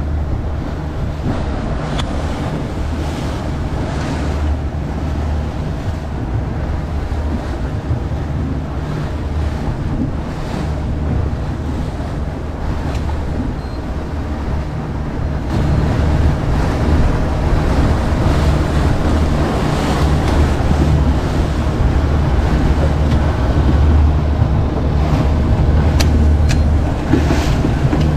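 Boat engine droning steadily under way while trolling, with the stern wake rushing and wind buffeting the microphone; it gets a little louder about halfway through.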